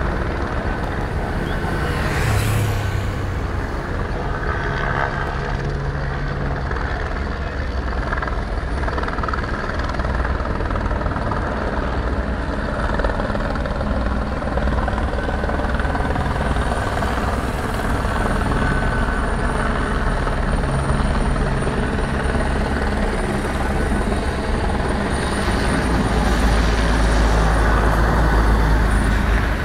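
Engines of escort motorcycles and a large coach driving past, growing loudest near the end as the coach passes close by.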